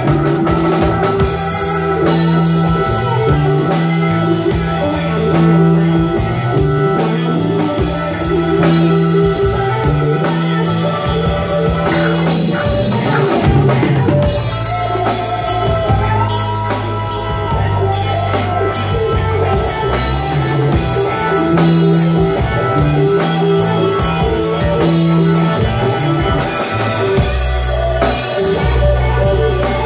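Live rock band playing an instrumental passage: drum kit, electric guitars and keyboard over a steady, repeating low bass line, with a held guitar note that bends about halfway through.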